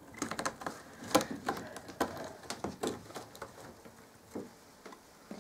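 Irregular light clicks and scratches as a Sphynx cat's paws and claws move over a carpet-covered cat scratcher. The clicks thin out over the last second or so.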